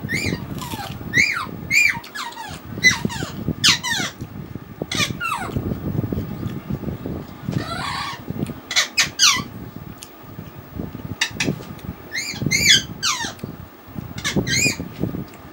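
A small animal's short, high, squeaky cries, each sliding down in pitch, repeated about fifteen times in little clusters, over low, soft eating noises.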